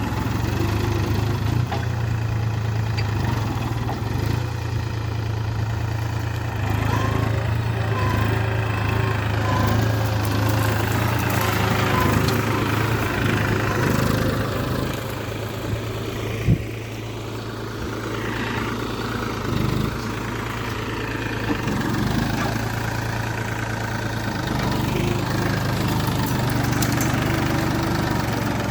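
New Holland 4710 tractor's three-cylinder diesel engine running steadily under ploughing load in four-wheel drive, with the hand throttle set at about 1200 rpm. A single sharp knock comes a little past halfway.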